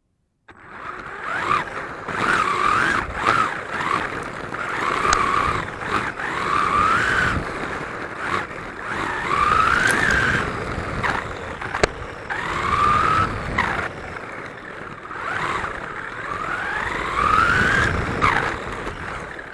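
Wltoys 124019 RC buggy's electric motor whining in repeated rising sweeps as the car accelerates again and again, over a steady rumble and rattle from the chassis, heard from a camera mounted on the car. The sound starts about half a second in, with a few sharp clicks along the way.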